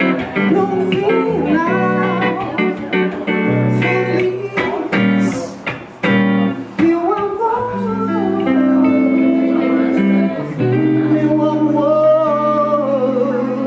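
A woman singing a slow, romantic song into a microphone over a steady instrumental backing, with a long wavering held note near the end.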